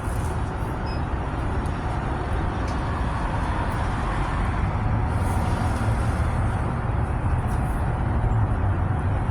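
Steady low rumble of a running vehicle, heard from inside it.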